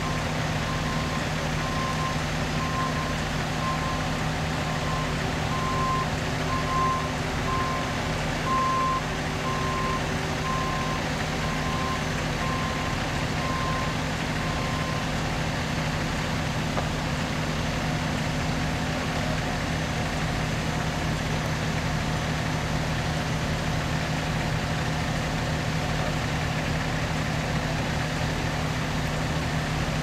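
Heavy paving machinery's engines running steadily, with a vehicle's reversing alarm beeping at a bit more than one beep a second through the first half; the beeping then stops and the engine drone carries on.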